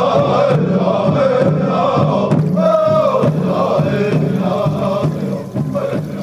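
Chanted Native American song, with voices singing in wavering, sustained lines over a steady low layer. It fades down near the end.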